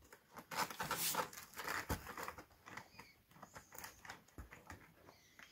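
Small plastic clicks, taps and light scrapes, scattered and irregular, as the plastic housing of a PSA COM2000 steering-column switch unit is opened and handled.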